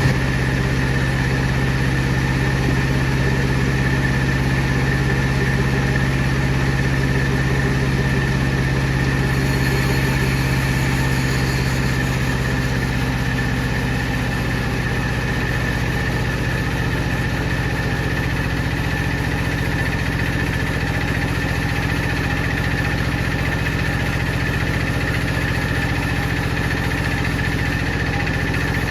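Large power saw running steadily: a continuous low machine hum with a thin steady whine above it, the low hum easing slightly about halfway through.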